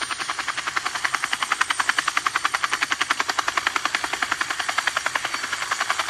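Toy helicopter's rotor sound effect: a fast, even chopping pulse.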